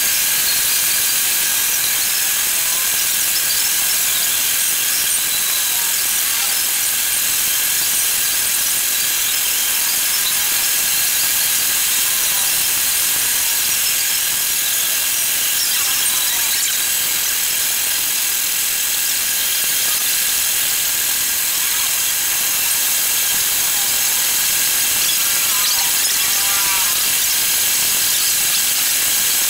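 Milling machine with a large face-milling cutter surfacing a flat metal plate: a steady, high-pitched cutting hiss with the spindle running, and faint brief squeaks now and then, a cluster of them near the end.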